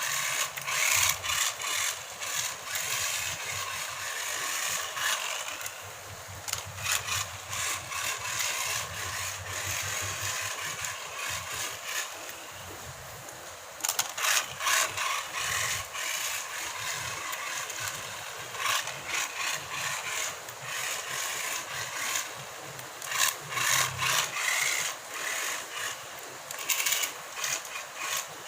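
Tiny 1:43-scale RC car running, with a scratchy, irregular scraping noise that comes and goes in short bursts.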